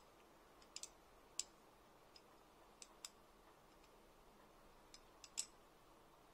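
A dozen or so faint, sharp, irregular clicks against near silence: aluminium square tubing being handled and worked together as the inner tube is pushed into the outer one to seat thin plastic slip pads.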